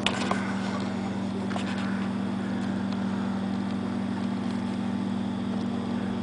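Boat motor running steadily with an even low hum.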